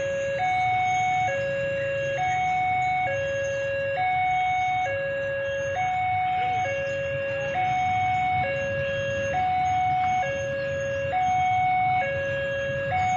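Railway level-crossing warning alarm sounding a steady two-tone electronic signal, switching between a lower and a higher note about every second. Underneath runs the low rumble of an approaching diesel locomotive.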